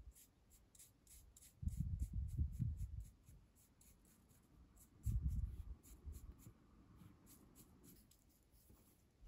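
Ink brush scrubbing and dabbing on a printed paper page, in two short bouts of soft rustling, about two seconds in and again about five seconds in.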